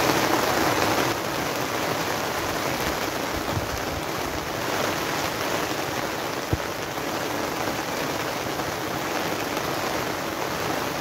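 A heavy rain shower drumming on a polytunnel's plastic cover, loud and steady. About a second in it drops slightly and carries on as an even hiss of rain. There is one brief thump about six and a half seconds in.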